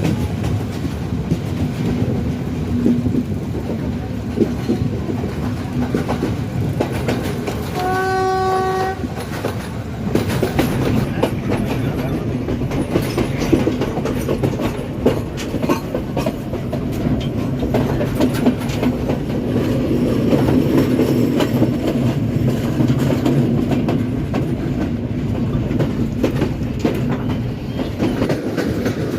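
Passenger train running along the track with a steady rumble and the clickety-clack of wheels over rail joints. About eight seconds in, the train's horn sounds once for about a second as a single steady tone.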